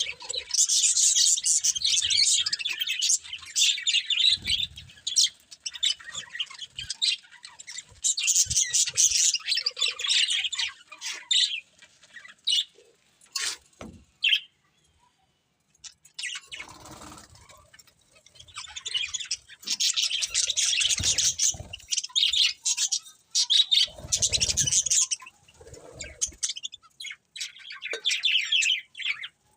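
Budgerigars chattering and chirping in quick, dense bursts, stopping for about two seconds around the middle before starting again, with a few low thuds among the chirps.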